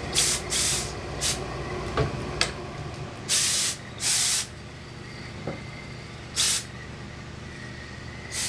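Steam iron with a hose-fed steam supply puffing jets of steam into a mink fur coat: about seven short hissing bursts, the longest two around three to four seconds in. A low hum underneath stops about two and a half seconds in.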